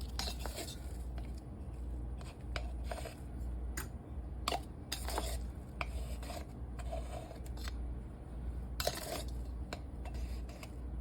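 A measuring spoon scooping and levelling baking powder from its container, with scattered light clicks and a few short scrapes.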